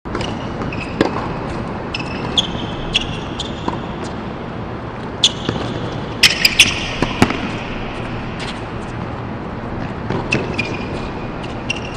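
Tennis being played on a hard court: sharp pops of racket striking ball and ball bouncing, spaced a second or more apart with a quick cluster of three or four about halfway through, and short high squeaks of tennis shoes on the court surface in between, over a steady background hiss.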